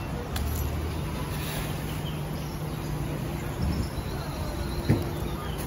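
Street ambience of a busy market with a steady low hum, as from an engine or machine running nearby, and a single sharp knock about five seconds in.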